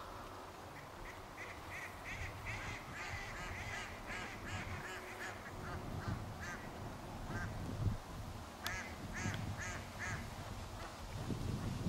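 A bird calling in a long series of short repeated notes, about three a second, swelling and then fading out after about seven seconds, followed by a second, shorter series near the end, over a low rumble of wind.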